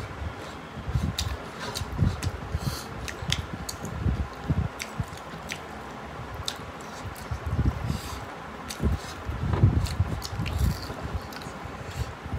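Close-up eating sounds: wet squishing and chewing as rice and curry are mixed and eaten by hand, with scattered small clicks of fingers and food on metal plates.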